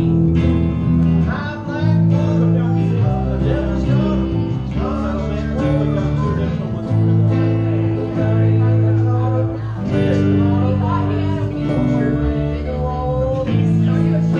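A small acoustic band playing live, with acoustic guitar over held low notes that change every second or two.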